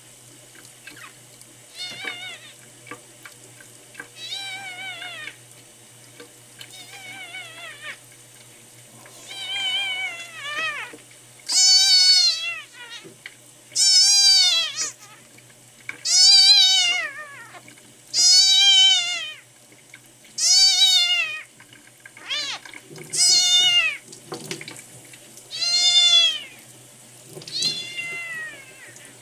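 Newborn kitten, under two weeks old, mewing over and over, about one cry every two seconds, each cry rising and falling in pitch. The cries start faint and turn loud and insistent about halfway through, with a tap running into the sink underneath.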